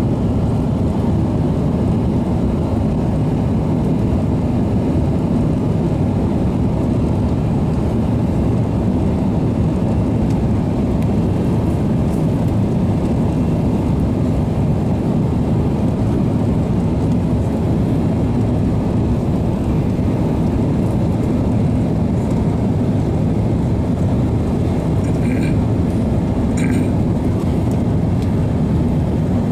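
Steady low rumble of an airliner's engines and rushing air heard inside the passenger cabin during the descent to land.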